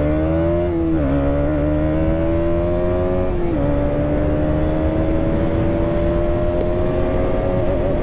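KTM Duke 200's single-cylinder four-stroke engine accelerating hard, its pitch climbing in each gear. Two upshifts, about a second in and about three and a half seconds in, each drop the pitch, and in the last gear, fourth, the note rises slowly and steadily toward 100 km/h.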